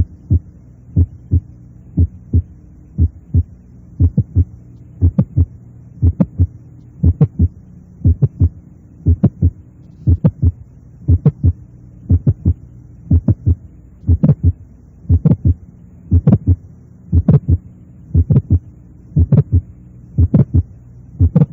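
Recorded heart sounds through a stethoscope, about one beat a second: first the normal first and second heart sounds, then with a single mid-systolic click added between them, then with a double systolic click. A steady low hum runs underneath.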